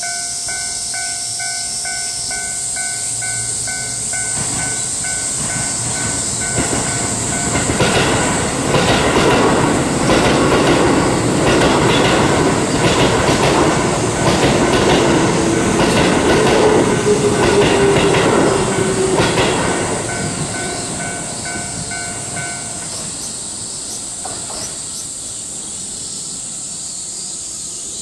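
Japanese level-crossing warning bell ringing steadily while a Keio electric commuter train passes over the crossing, its wheels clacking over the rail joints and a slightly falling whine heard in the middle of the pass. The train noise builds from about a quarter of the way in and fades after about two-thirds, and the bell stops shortly after the train has cleared.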